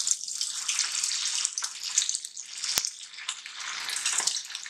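Hot oil sizzling and bubbling hard as stuffed sabudana vadas (sago and paneer fritters) go in to deep-fry. A single sharp click comes about three seconds in.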